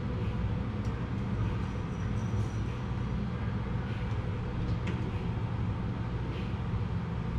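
Steady low mechanical hum of room noise, with a few faint ticks.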